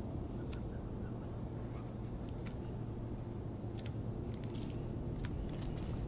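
Steady low outdoor rumble, with scattered sharp clicks and two faint, very short high tones early on.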